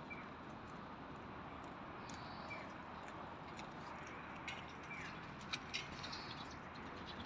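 Steady, faint outdoor background noise with a few short, high bird chirps, and a handful of sharp clicks, the loudest two close together about five and a half seconds in.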